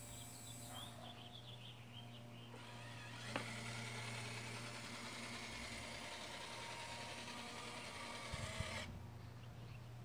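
Electric motor of a Traxxas 6x6 RC rollback tow truck running steadily as its bed slides back. It starts with a click about three seconds in and stops suddenly near the end.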